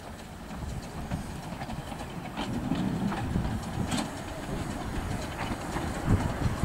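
Small narrow-gauge steam locomotive, a Bagnall 2-4-0 tank engine, moving slowly along the track. Its uneven low exhaust beats are broken by a few sharp wheel-on-rail clicks.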